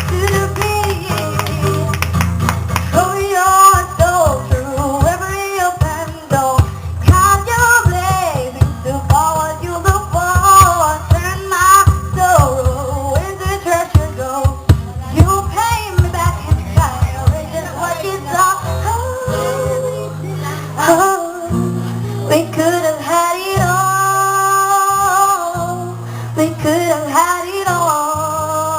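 A song with a singer's voice over a fast, heavy bass beat, played loud through a mobile DJ sound system at a sound check. The fast beat stops a little over halfway through, leaving held bass notes under the singing.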